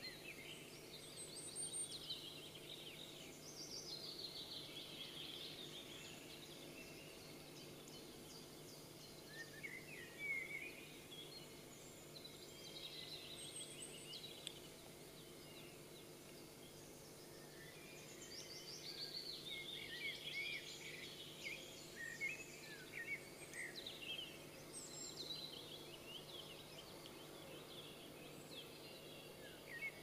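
Songbirds singing in bursts of quick, high chirps and trills that come and go in several phrases, faint, over a steady low background hum.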